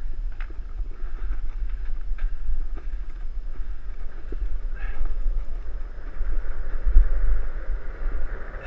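Wind buffeting the microphone of a helmet-mounted camera as a mountain bike rolls fast along a dry dirt trail, with a hiss of tyres on dirt and scattered clicks and rattles from the bike. The rumble swells about seven seconds in.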